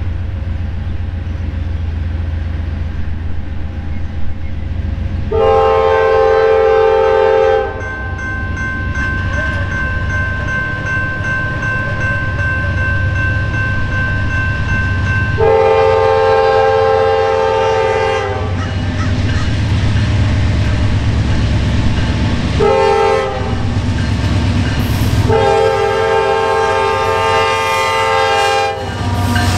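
Norfolk Southern GE AC44C6M diesel locomotive sounding its horn for a grade crossing in the standard pattern: two long blasts, a short one, then a long one, over the low rumble of the approaching train.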